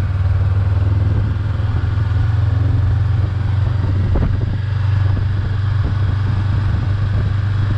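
Honda CB500X parallel-twin engine running at a steady pace while the bike is ridden, a constant low drone with no marked revving.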